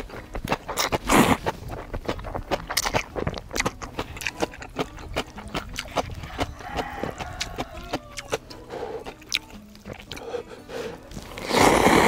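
Someone eating cup ramen close to the microphone: chewing with many small clicks and crunches, and two louder, longer noisy slurps of noodles, one about a second in and one near the end.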